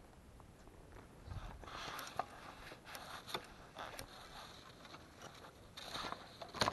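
Fly line being stripped in by hand: a run of short scraping swishes and sharp ticks, the loudest near the end.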